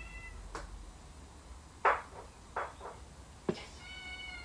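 A few sharp knocks and clicks as the dismantled strimmer engine is handled on a workbench, the loudest about two seconds in. A cat meows briefly at the start and again near the end.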